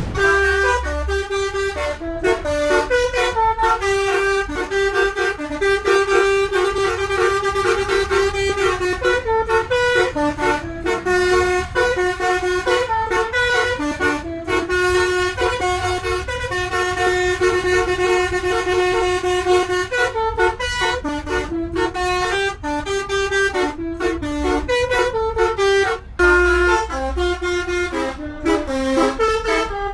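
Indonesian bus telolet horn, a multi-tone horn, played as a tune: quick runs of changing notes with some held longer. A low rumble runs underneath.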